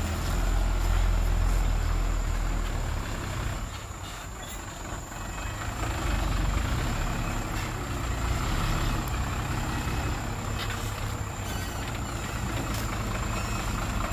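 Loaded Hyundai dump truck's diesel engine running as the truck moves at low speed. Its rumble eases off about four seconds in and picks up again a couple of seconds later.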